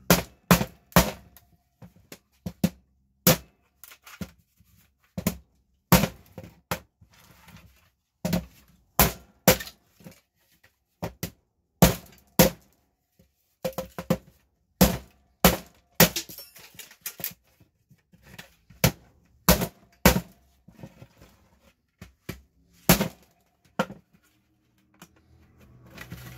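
Brick hammer striking the plastic case of a Wi-Fi router: a long run of sharp knocks at irregular intervals, some in quick pairs, as the case is beaten to crack it open.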